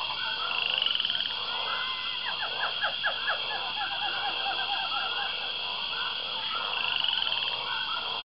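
Rainforest ambience: a steady high insect drone with many overlapping animal calls, densest in a quick run of short calls about two to four seconds in. It cuts off abruptly near the end.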